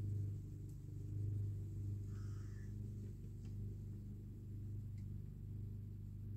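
Distant lawnmower engines droning steadily in the background, a low hum that swells and fades slightly.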